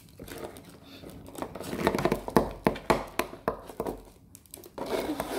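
Rustling and a rapid run of small clicks from objects handled right by the microphone, thickest in the middle.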